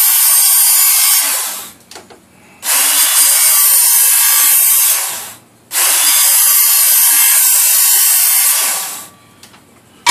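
Handheld Work Sharp electric belt sharpener grinding the steel edge of a shovel blade, reworking an edge that is still rolled. It gives three passes of loud, steady grinding, each lasting about two and a half to three seconds. Each pass trails off as the motor is released, leaving short quiet gaps between them.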